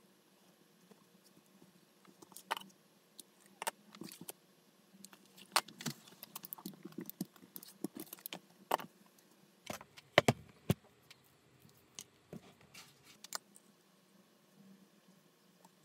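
Hands handling a leather panel with a clear vinyl window: scattered clicks, crinkles and rustles, with a cluster of sharper knocks about ten seconds in.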